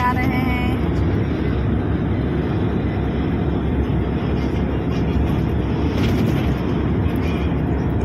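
Tour bus engine and tyre noise heard from inside the passenger cabin while driving: a steady, even drone with no breaks.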